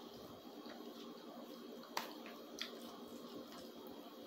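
Quiet eating sounds: a metal fork working through spaghetti on a plastic plate, with soft wet chewing. Two sharp clicks stand out, about two seconds in and again half a second later.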